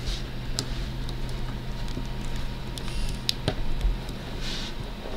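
Plastic action figure being handled and posed: a few light clicks and taps of its hard plastic parts and accessories, over a steady low hum.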